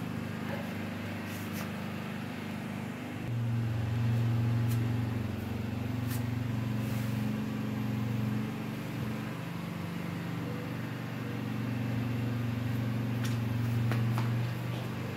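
A steady low mechanical hum that gets louder about three seconds in and then holds with small swells, with a few faint clicks.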